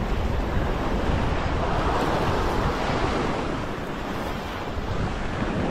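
Sea swell surging and washing against a rock ledge, foaming whitewater swirling, with wind buffeting the microphone. The wash swells a little in the middle and eases off again.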